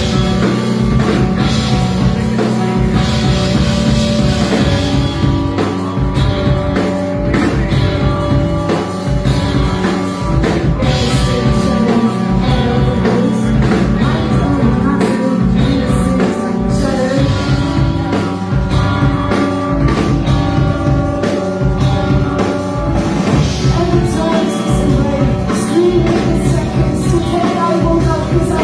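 Rock band playing live: drum kit, guitars and singing, loud and steady.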